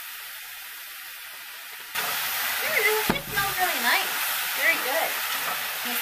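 Bok choy frying in olive oil in a pan on a gas burner, stirred with chopsticks: a steady sizzle that grows much louder about two seconds in.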